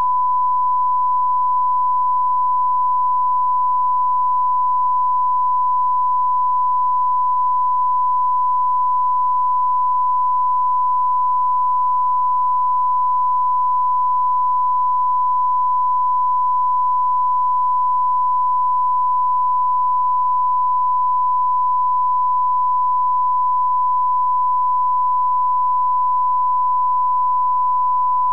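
Steady, unbroken test tone of one pitch, the line-up tone broadcast with colour bars, marking the channel off the air.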